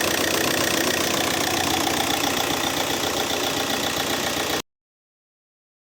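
Audi A3 8P's 2.0 TDI (BMM) diesel engine idling steadily, a little loud, with a newly fitted alternator overrunning clutch pulley and the belt tensioner no longer jerking. The sound cuts off abruptly near the end.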